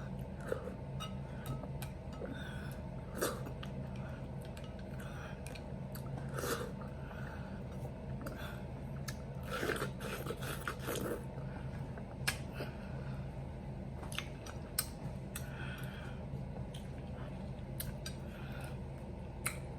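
A person chewing and biting juicy watermelon with fruit toppings: scattered short wet mouth clicks and brief smacking bursts, over a faint steady low hum.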